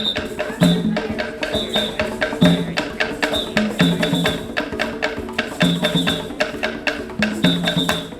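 Music with a fast, steady beat of wood-block-like percussion, about four to five hits a second, over a repeating pattern of low notes.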